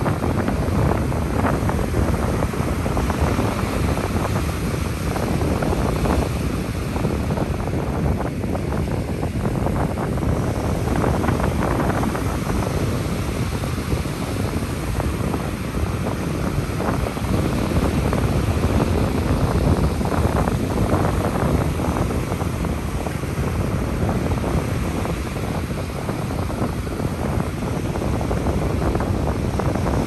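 Ocean surf washing on a beach, heard as a steady rushing noise, with wind buffeting the microphone.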